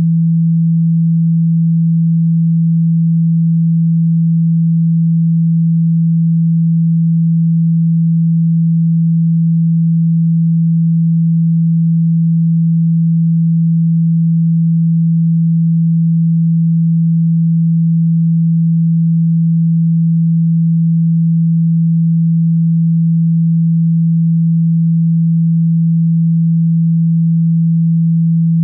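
Steady, unchanging low pure tone, a sine wave played as a speaker-cleaning sound to vibrate dirt, dust and water out of a phone's speaker.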